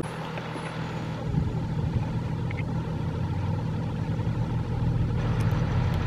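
Vehicle engine running with a steady low hum that grows slowly louder.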